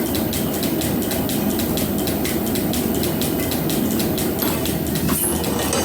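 Metal planer running, its swan-necked roughing tool taking a cut on a steel bar, with a fast, even ticking.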